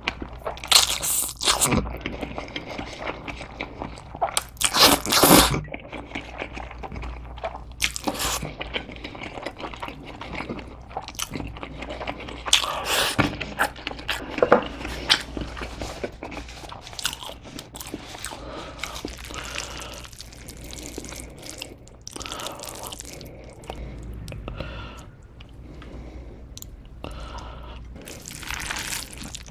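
Close-miked eating sounds of a person slurping and chewing spicy mixed noodles (bibim guksu). There are several loud slurps and bites in the first half, then quieter, wet chewing with small ticks.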